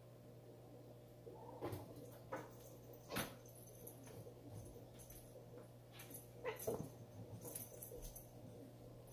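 A grey tabby cat and a tortoiseshell kitten play-fighting on a tile floor: scuffling with several sharp knocks and thumps, the loudest a little past the middle, and a few short animal cries.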